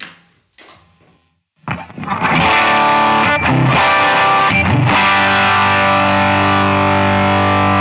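Veritas Minimaster electric guitar on its bridge pickup, driven through a Timmy overdrive pedal set fairly hot, playing overdriven chords. The playing starts about a second and a half in, changes chord twice, then lets a final chord ring.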